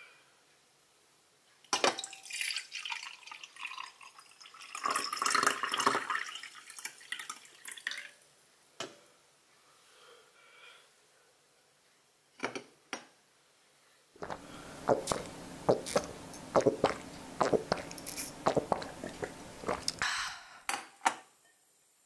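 Liquid pouring and dripping into a glass mug in two long spells, each dotted with sharp clicks, with single clinks of glass between them and near the end.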